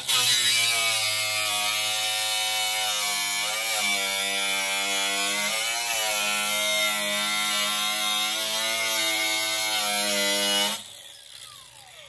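Cordless angle grinder with a cut-off wheel slicing through galvanized sheet-metal cabinet panel, a steady high whine that sags in pitch a couple of times as the wheel bites. It stops suddenly about eleven seconds in.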